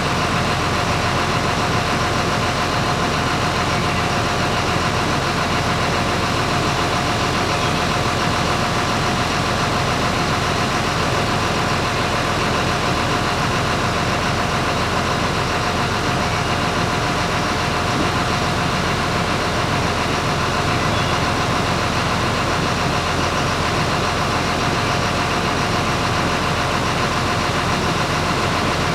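An engine running steadily at idle, with a constant whine over the engine noise.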